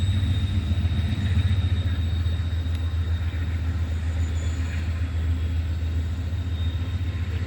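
Amtrak P42DC diesel locomotive working uphill through the curve: a steady low engine rumble, with a faint thin high tone above it.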